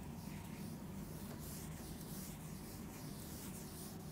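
Felt chalkboard duster wiping a chalkboard: faint repeated rubbing strokes, about two a second.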